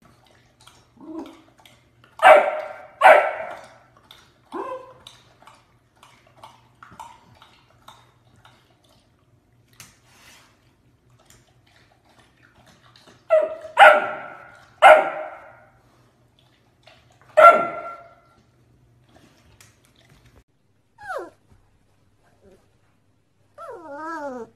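Labrador retriever barking in short sharp barks: two loud ones a couple of seconds in, a softer one after, then three quick barks about halfway and one more a few seconds later. Near the end come two short falling whines.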